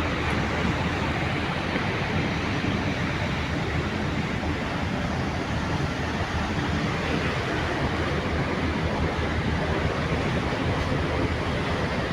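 Steady rush of choppy sea waves and wind around a moving ferry, with wind buffeting the microphone.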